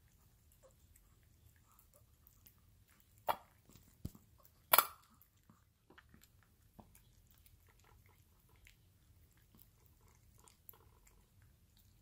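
Small dog eating wet food from a stainless-steel bowl: faint, sparse chewing and licking clicks, with a few louder sharp clicks between about three and five seconds in, the loudest near five seconds.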